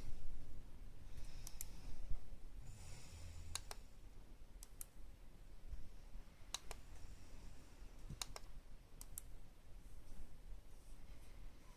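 A series of sharp clicks, most in close pairs, every second or two, with two short hissing swishes in the first few seconds.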